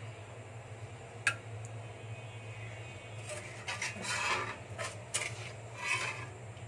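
Steel ladle scraping and clinking against the inside of a metal karahi while scooping out fish curry, several strokes in the second half, after a single sharp metal tap about a second in.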